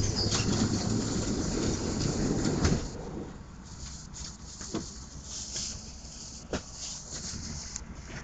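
A tram running along the street, heard from inside the car: a louder rumble for the first three seconds or so, then quieter steady running with a few sharp knocks, the loudest about six and a half seconds in.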